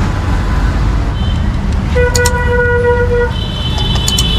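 Steady road-traffic rumble with a vehicle horn sounding one long honk for about a second, about two seconds in, followed by a higher-pitched horn near the end. A few sharp clinks are heard among the horn sounds.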